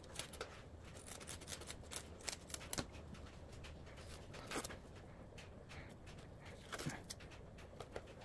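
Kitchen scissors snipping as rockfish are trimmed: a scattering of faint, sharp snips and clicks, with a few louder ones partway through.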